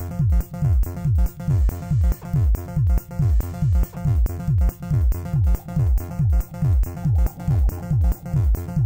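Electronic background music with a fast, steady bass-drum beat over synthesizer tones.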